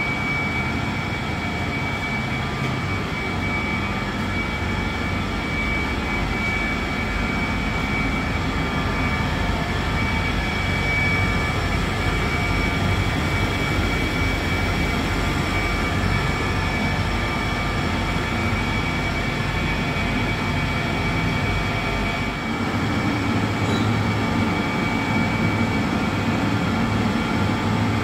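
Flour mill machinery grinding wheat, running steadily with a constant rumble and a high whine; the rumble shifts slightly near the end.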